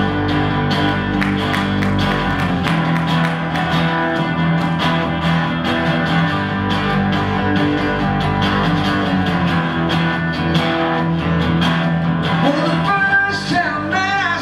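Live acoustic trio of three acoustic guitars strumming a steady chordal rhythm. Near the end, a male lead voice comes in singing over the guitars.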